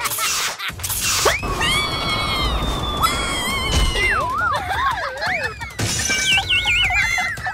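Cartoon sound effects: a crash-like burst at the start, then a whistle that slides up, a long falling whistle, and tones wobbling down in pitch. A warbling trill follows near the end, the cartoon fall-and-dizzy gag.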